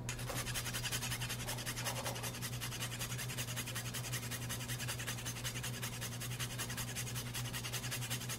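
Whole nutmeg being grated on a rasp grater over a saucepan: a fast, even rasping, stroke after stroke, over a low steady hum.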